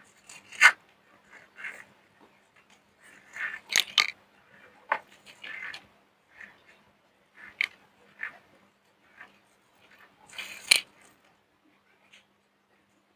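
Soap being crushed by hand: an irregular run of sharp crunches and crackles with softer scraping between, the loudest snaps about half a second in, around four seconds in and near eleven seconds.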